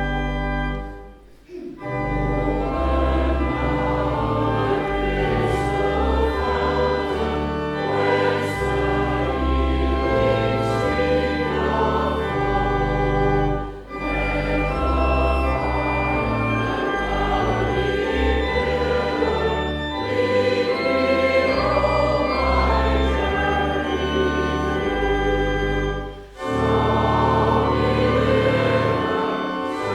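Choir singing a hymn with organ accompaniment, in long held phrases with short pauses between them.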